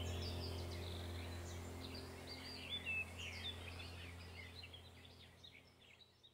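Many small birds chirping and twittering over a steady low hum, the whole ambience gradually fading out to silence.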